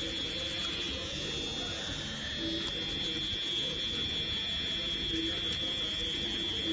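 Button-style rotary pen tattoo machine running with a steady buzz and a constant high whine while its needle cartridge works into the skin.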